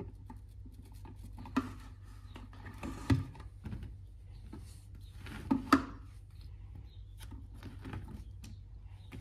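Silicone Squigz suction-cup toy pieces being handled and pressed together: scattered small clicks, with sharper sounds about one and a half and three seconds in, and a quick pair of the loudest ones about five and a half seconds in.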